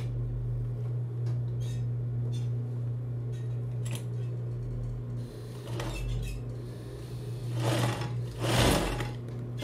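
Industrial sewing machine stitching through a thick, folded denim seam, its motor humming steadily throughout, with two louder, rougher bursts of stitching about three-quarters of the way in.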